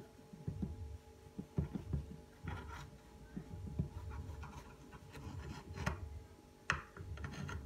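Small knife scratching and tapping against the rim of a glass baking dish as it trims excess puff pastry dough, in irregular soft scrapes, with one sharper click near the end.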